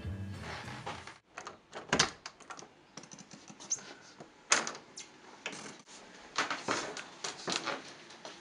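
Music fades out, then a door is handled and footsteps in sandals go down a staircase: a scatter of irregular sharp knocks and slaps, the loudest about two seconds in and again around four and a half seconds.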